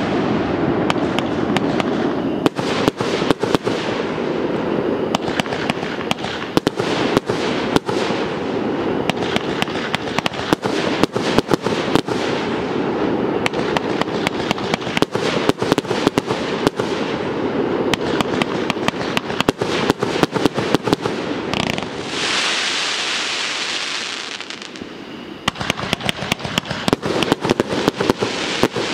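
Fireworks going off in quick succession: a dense run of sharp pops and crackles over a continuous hiss. About three-quarters of the way through, the pops stop for a few seconds and only the hiss remains, then the pops start again.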